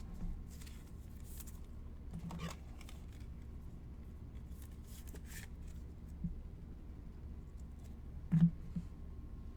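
Trading cards and their packaging being handled on a table: soft rustling, sliding and small clicks, with one brief knock near the end, over a steady low hum.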